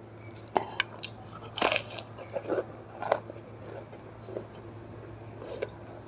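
Close-miked chewing of a mouthful of crisp samosa, with irregular sharp crunches, the loudest about a second and a half in. A low steady hum runs underneath.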